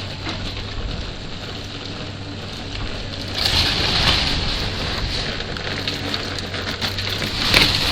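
Demolition machinery working on a wrecked house: a steady engine hum under crunching and breaking of debris, louder about three and a half seconds in and again near the end.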